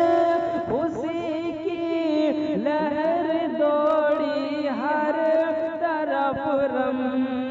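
A solo voice singing an Urdu naat for the farewell of Ramadan, drawing out a long ornamented phrase with wavering, gliding pitch. A steady held tone runs beneath the voice.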